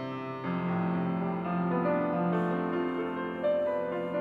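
Grand piano playing held chords over sustained bass notes, a new chord struck every second or two.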